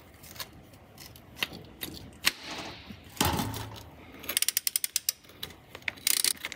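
Socket ratchet wrench clicking in short bursts as it undoes the fastener on a Triumph TR7 transmission mount, with a fast run of even clicks a little past the middle. A short rasping noise comes about three seconds in.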